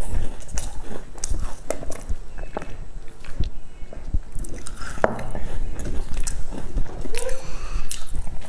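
Close-miked eating: a person chewing and biting into flaky pastry, with many small clicks and crackles of crust and mouth smacks. There is a short sip through a straw around the middle.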